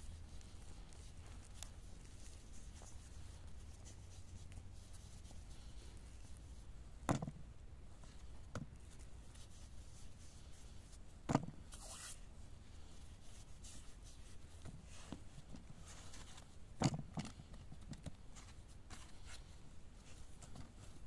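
Bread dough being patted and slapped between the hands and onto a floured wooden board: three louder slaps about seven, eleven and seventeen seconds in, with a couple of softer pats. A faint low rumble runs underneath.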